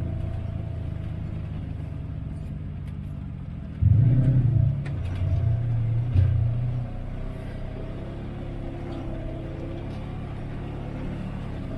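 Off-road vehicle engine running steadily at low speed. From about four seconds in, the throttle is opened for about three seconds, so the engine gets louder and its pitch rises and falls, then it drops back to a low, steady run.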